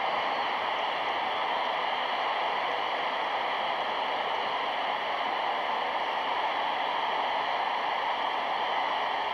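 Steady hiss with faint constant tones running through it, the background noise of an old film soundtrack.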